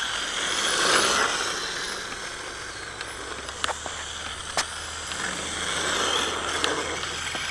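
Radio-controlled drift car driving on a hard court, heard from a camera mounted on the car: a rushing hiss that swells and fades twice as it slides, over a steady low hum, with a few sharp clicks from the body and mount.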